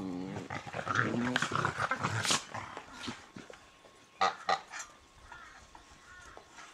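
An animal calling, with a strongly wavering pitch that falls away, fading out about two and a half seconds in; then two sharp knocks follow close together.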